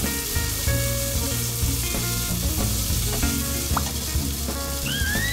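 Glass noodles, ham and snow peas sizzling steadily in sesame oil in a frying pan while being stirred with chopsticks.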